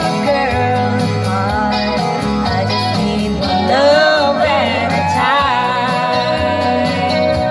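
A woman singing a slow melody with wavering, held notes into a microphone over guitar accompaniment, played through a PA loudspeaker.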